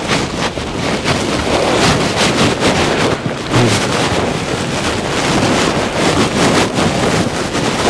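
Loud, continuous rustling and swishing of clothing as ladies' jackets are pulled out of a heap of garments and shaken open.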